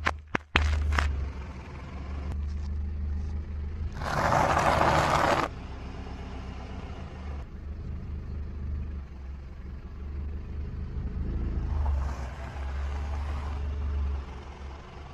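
A car's tyre rolling over and crushing Snickers bars, then stacks of chocolate-chip cookies, over the car's low, steady engine rumble. A few sharp clicks come right at the start. About four seconds in, a loud crunching noise lasts a second and a half, and a weaker one follows around twelve seconds in.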